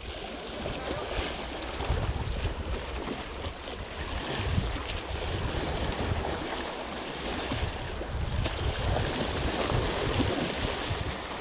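Sea waves washing and splashing against the boulders of a rock breakwater, a continuous surging wash that swells and eases, with a low wind rumble on the microphone.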